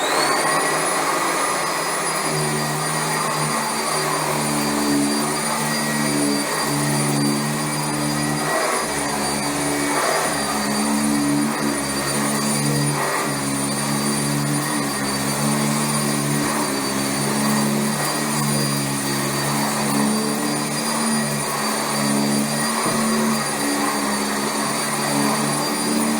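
Sanitaire SC679J commercial upright vacuum cleaner switching on, its motor spinning up to a steady high whine and then running as it is pushed over carpet, the lower hum swelling and fading about once a second.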